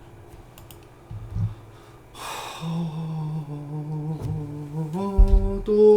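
A man humming low, held notes that step up in pitch near the end, after a single thump about a second in.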